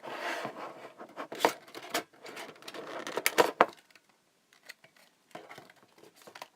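Packaging rustling and crinkling as the contents of a Pokémon card tin are handled, with several sharp clicks over the first few seconds. After that it goes quiet apart from a few faint taps.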